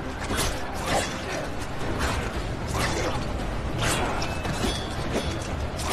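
Battle melee in a film soundtrack: weapons clashing, with several sharp metallic hits over a steady low rumble of the fighting.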